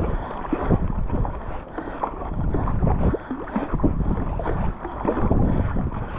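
Werner Cyprus paddle blades splashing and pulling through the water in quick, repeated strokes, with water washing along an 18 ft Current Designs Solstice GTS sea kayak. Wind buffets the microphone underneath.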